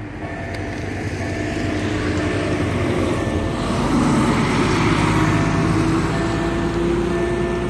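Dump truck's engine passing close by, loudest about four to five seconds in, its pitch rising as it pulls away. Behind it the level crossing's warning signal sounds a short electronic tone about once a second.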